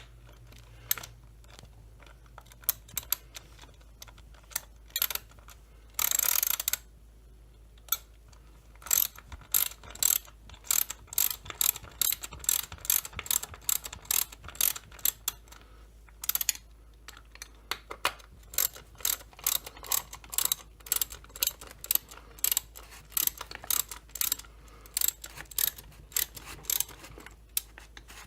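Socket ratchet clicking as the chainsaw crankcase screws are run down: runs of sharp clicks, about two a second, with a short rasping burst about six seconds in.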